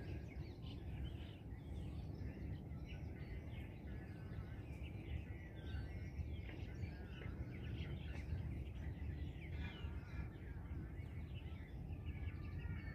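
Many short bird chirps and calls over a steady low background rumble.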